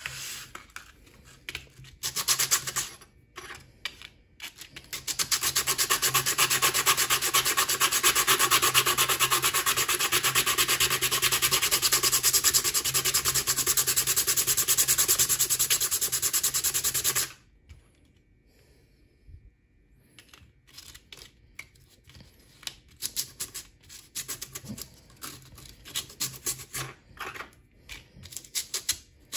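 A small model-railroad car part rubbed back and forth on sandpaper laid flat on a countertop: a long spell of fast, even sanding strokes, then a pause of a few seconds and shorter, quieter strokes.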